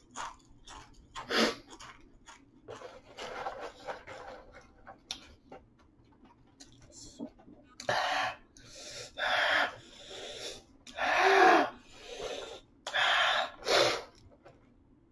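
A man's heavy, hissing breaths and pants through an open mouth as he reacts to the burn of ghost pepper chips, a few short breaths at first, then a string of louder gusts in the second half, one with a brief voiced wheeze.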